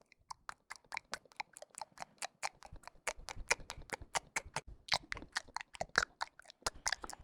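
A rapid, slightly uneven series of sharp clicks, about five or six a second.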